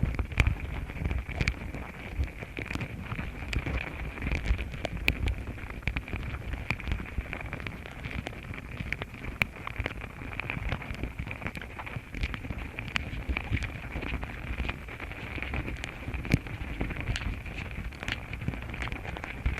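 Outdoor ambience: low wind rumble on the microphone, a steady high-pitched drone, and scattered small clicks and crackles throughout.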